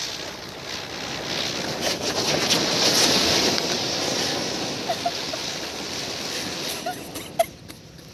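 Several anar (flowerpot) fountain fireworks burning at once with a rushing hiss of sparks, swelling about three seconds in and dying down toward the end. A single sharp crack sounds near the end.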